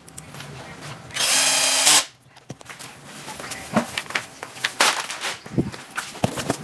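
Cordless drill driver spinning in one burst of about a second, driving screws, followed by a string of light clicks and knocks from handling hardware.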